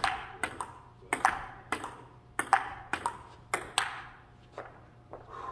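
Table tennis rally: the ball clicks sharply again and again as it bounces on the table and is struck by the paddles, the hits often coming in quick pairs.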